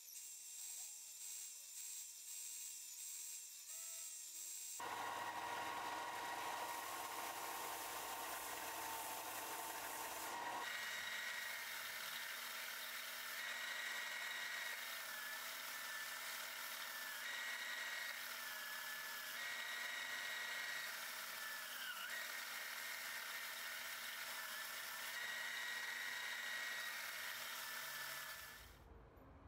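Benchtop belt sander running while a pine board is sanded against the belt: a steady whine over the rasp of abrasive on wood. The sound changes abruptly about five and ten seconds in, and stops just before the end.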